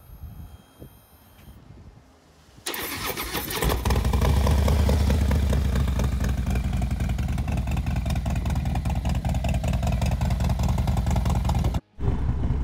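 Harley-Davidson Road Glide V-twin cold start: the starter cranks about two and a half seconds in, and a second later the engine catches and runs steadily and loudly. It cuts out briefly near the end, then the engine sound picks up again.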